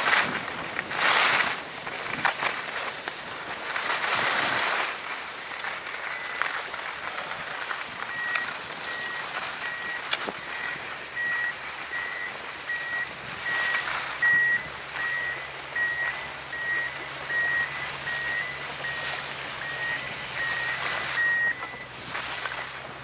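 Skis scraping and carving over groomed snow, the noise swelling and fading with each turn. From about a third of the way in until near the end, a high electronic beep repeats about one and a half times a second, like a reversing alarm.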